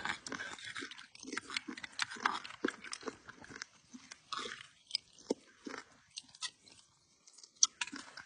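Close-up eating sounds from a person eating fufu with light soup: irregular chewing and lip smacking with sharp, wet mouth clicks.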